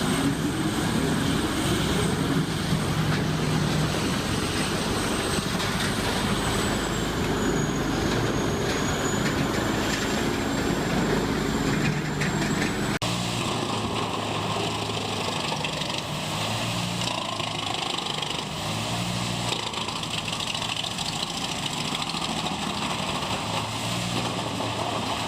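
Large industrial wood grinder running, its diesel engine and grinding drum making a steady mechanical noise with a thin high whine. About halfway through the sound cuts abruptly to another heavy chipping machine's engine running, with lower pulsing tones.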